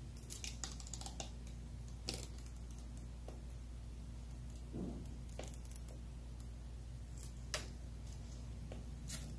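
Protective plastic film being peeled off an acrylic keyboard top plate: faint, irregular crackles and ticks, with a sharper one about two seconds in and a couple near the end.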